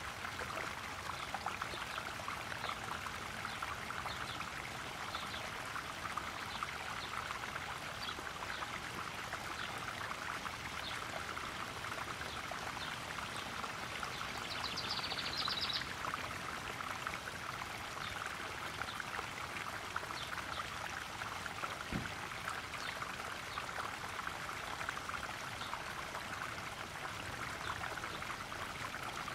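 Small garden waterfall pouring and splashing steadily into a koi pond, a continuous trickling with many small splashes. About halfway through, a short, rapid high trill sounds over the water.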